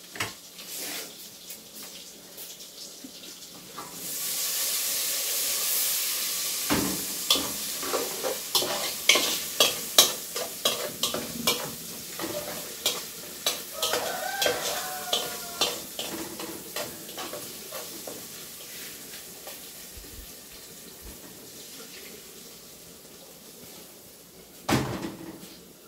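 Food sizzling in a hot pan, starting suddenly about four seconds in as it hits the pan, while a spoon stirs and knocks against the pan in a long run of clicks. The sizzle slowly dies down, and there is one loud knock near the end.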